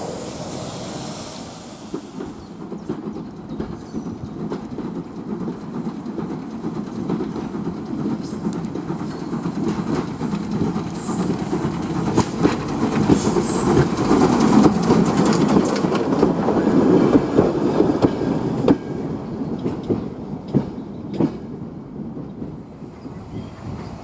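Heritage railway train running along the track, its wheels clicking over the rail joints; it grows louder towards the middle and eases off near the end.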